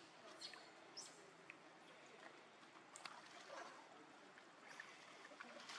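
Very quiet pool water: faint trickling with a few small, light splashes or drips.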